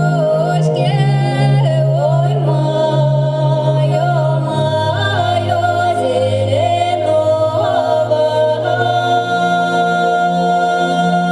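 Ethno-ambient folk music: a voice singing a flowing, gliding melody over long held low drone notes that step to a new pitch every few seconds.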